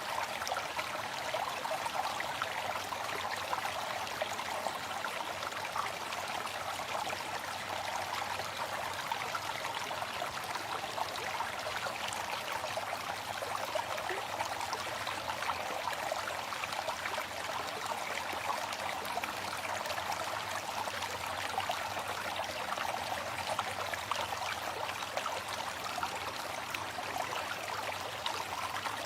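Steady rush of falling water from a waterfall, an even splashing hiss with little low rumble.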